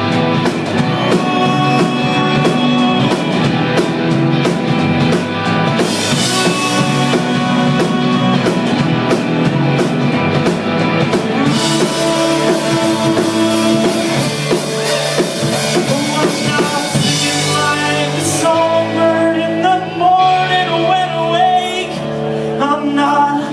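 Rock band playing a song, with a drum kit and guitar and held melodic notes; no sung words are transcribed in this stretch.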